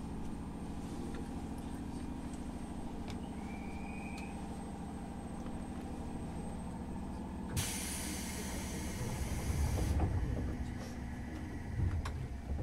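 Onboard sound in JR Kyushu 103 series 1500-subseries electric car MoHa 103-1503: a steady low hum from the car's equipment. About seven and a half seconds in, a burst of compressed-air hiss lasts about two seconds, with a low rumble swelling under it.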